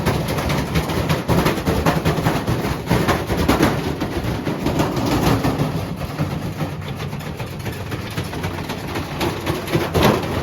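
Servis washing machine running with a brick loose in the drum: heavy, rapid banging and clattering over the motor's rumble. The racket eases off in the second half, with one hard bang near the end as the drum winds down.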